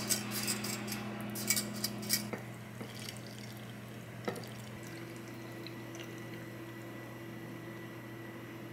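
Pickling brine poured from a glass measuring jug into a glass jar of sliced cucumbers, a soft trickle of liquid, after a few sharp clinks in the first two seconds.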